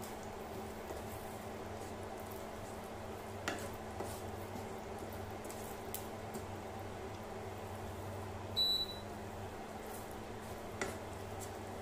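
A wooden spatula stirring baked beans and onions in tomato sauce in a non-stick frying pan, with soft wet squishing, over the steady hum of an induction cooktop. The spatula knocks lightly on the pan twice, and a short high-pitched tone sounds about two-thirds of the way through.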